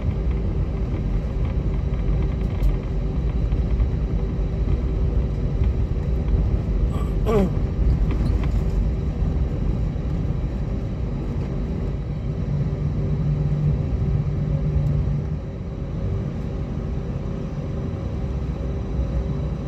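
Cabin noise of an Airbus A320 taxiing: a steady low rumble of the engines at idle and the wheels rolling, with a constant hum. A short falling squeal sounds about seven seconds in, and the rumble eases slightly about fifteen seconds in.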